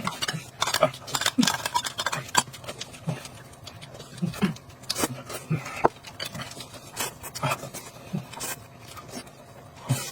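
Close-miked eating sounds: irregular chewing and lip-smacking, with small clicks of cutlery against a bowl.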